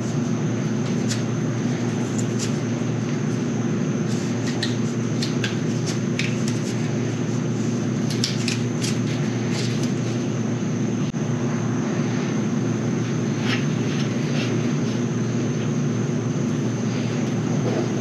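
A steady mechanical drone with a constant faint high whine, over which small clicks and metallic taps come and go as a threaded pipe fitting is handled, taped and screwed tight.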